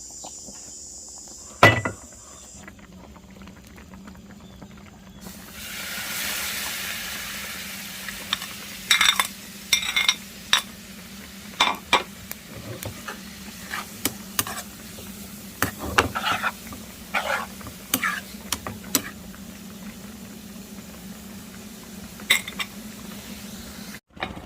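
Cooking in a pan: food hits hot oil about five seconds in and sizzles, the sizzle slowly dying down, then a utensil clinks and scrapes against the pan many times while stirring, over a steady low hum.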